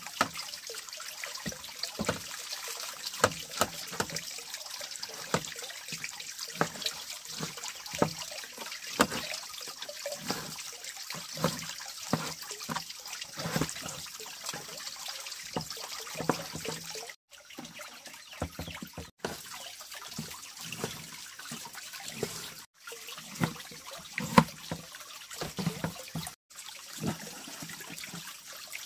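Water splashing and trickling, with irregular sloshes and small knocks.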